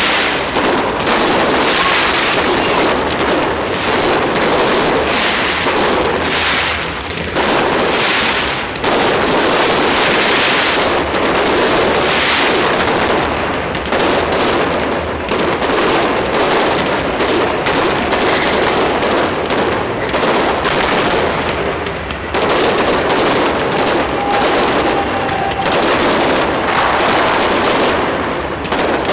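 Fireworks display: a dense, rapid barrage of bangs and crackles, nearly continuous, with brief lulls every several seconds.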